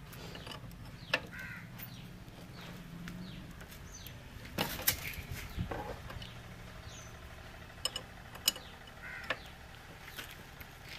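Steel spanner clinking against the front fork's top nut as it is worked loose, a few sharp metallic clicks with the loudest cluster about halfway through. Birds call briefly in the background.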